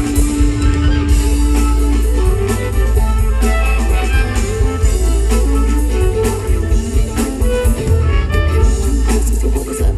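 Live band playing an instrumental passage of a bluegrass-rock song: electric guitar, amplified upright bass, drums and fiddle, over a steady drum beat and heavy bass.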